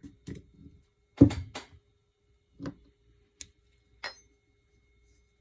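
Steel parts of an Uzi bolt clicking and knocking together as the extractor is fitted: a few sharp taps, the loudest about a second in, then scattered single clicks.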